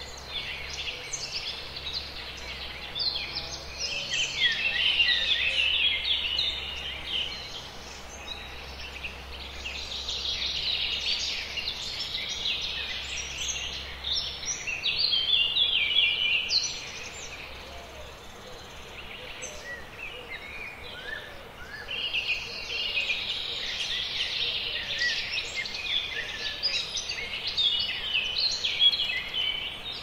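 A chorus of many birds chirping and singing at once, with quick high chirps, trills and rising and falling calls. The calling thins out for a few seconds past the middle, then picks up again.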